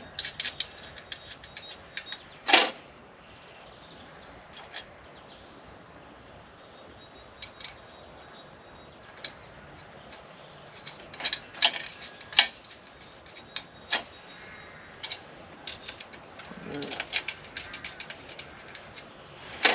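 Scattered sharp metallic clicks and ticks of bolts and nuts being started by hand into a metal motorcycle grab rack, some coming in quick little runs.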